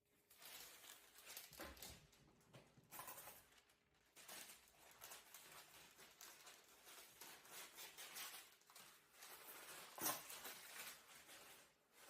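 Faint, irregular tapping and scraping of a knife chopping pumpkin seeds on a cutting board, with one louder knock about ten seconds in.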